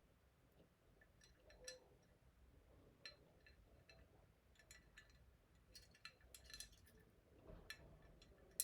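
Faint scattered clicks and light clinks of hands handling a diecast model airliner and its plastic packaging, with a sharper click at the end.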